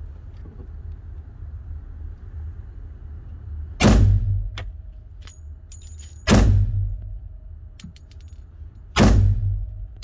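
Three gunshots from a Colt Gold Cup 1911 pistol in .45 ACP, fired slowly about two and a half seconds apart, each echoing off the concrete-block walls of an indoor range. A steady low rumble runs underneath.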